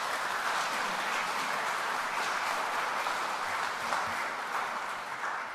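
Audience applauding, a steady clapping that begins to die down near the end.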